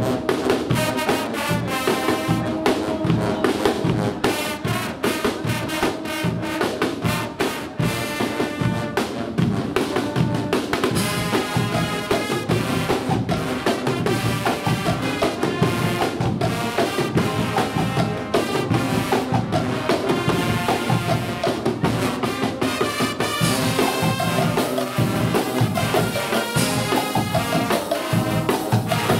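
A Guggenmusik band playing live: massed brass, with sousaphones and trumpets, over a steady, driving beat from drum kits and a bass drum.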